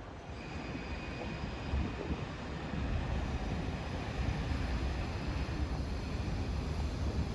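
City street traffic: a steady low rumble of passing vehicles, with a faint high whine in the background.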